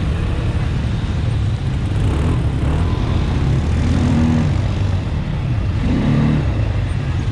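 ATV engine running steadily under way, its note swelling a little twice, about four and six seconds in, with road and wind noise.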